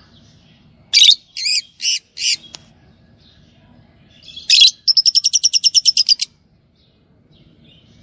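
Lovebirds calling: four loud, shrill calls in quick succession about a second in, then another call, then a fast chatter of about a dozen short repeated notes lasting just over a second.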